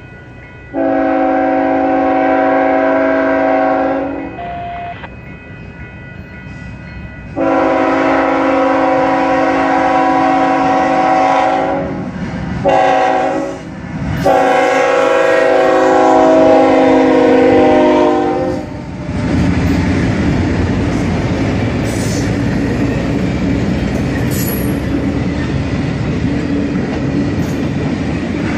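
Union Pacific diesel locomotive's multi-chime air horn sounding four blasts, long, long, short, long: the grade-crossing warning. Then the locomotives and passenger cars roll past close by with steady wheel-on-rail noise and a few sharp clicks.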